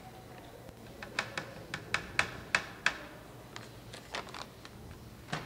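Plastic ingredient bag being handled and folded, crinkling in a quick run of sharp crackles about a second in, with a few more near the end.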